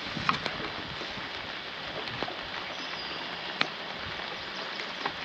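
Light rain pattering steadily, with a few sharp ticks scattered through, the loudest about three and a half seconds in.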